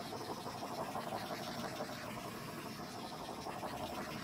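Faint scratchy rubbing of a cloth wiping wet acrylic paint off the edge of a vinyl record, over a steady hiss.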